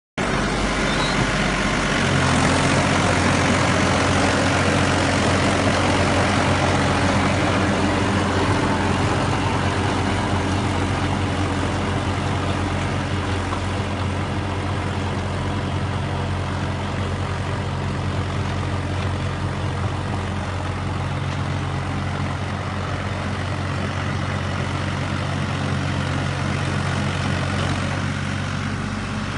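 Mahindra 265 DI tractor's three-cylinder diesel engine running steadily under load while driving a rotavator, its note stepping up about two seconds in and then holding.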